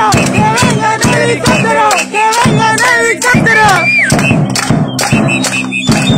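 A crowd of voices over a fast, steady drumbeat of about four beats a second.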